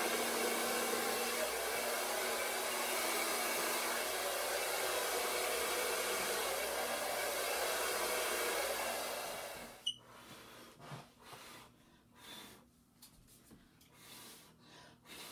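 Hair dryer blowing steadily, pushing wet acrylic paint across the board in a Dutch pour blow-out, then switched off about ten seconds in. After it, a few short, faint puffs of breath.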